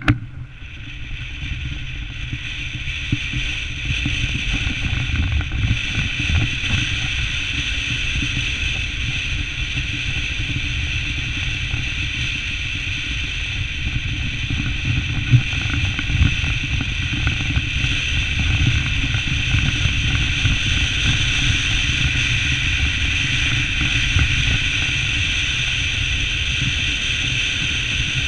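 A car driving on a gravel road, heard from a camera on the bonnet: a steady low rumble of tyres on loose gravel under a constant hiss. The noise builds over the first few seconds, then holds.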